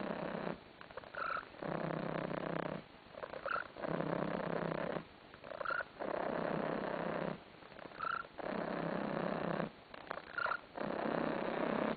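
Domestic cat purring loudly in a steady breathing rhythm: purr phrases about a second long with short quieter pauses between them. A brief high squeak comes in most pauses, about every two seconds.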